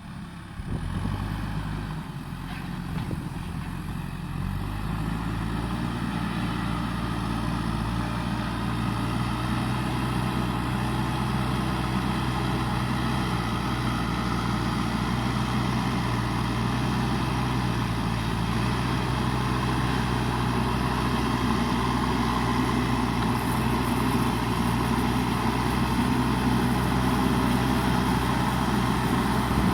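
JCB backhoe loader's diesel engine running, its speed shifting a few times in the first five seconds and then holding steady.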